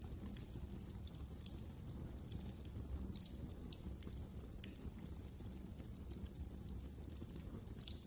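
Wood fire crackling in a fireplace: a constant scatter of small, irregular snaps and pops, with a few louder ones, over a low steady rumble of the flames.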